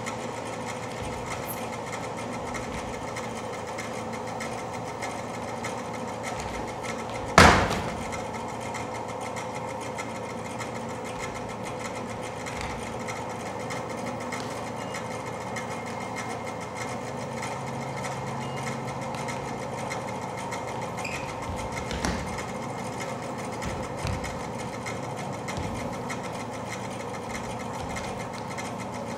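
Steady machine-like whirring drone with faint held tones, and one loud sharp thump about seven seconds in, followed later by a few softer knocks.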